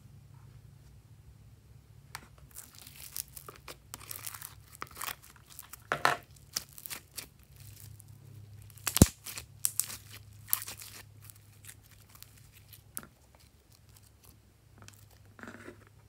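Pink slime full of small foam beads being stretched and squeezed by hand, giving irregular crackles and snaps, with one sharp snap about nine seconds in.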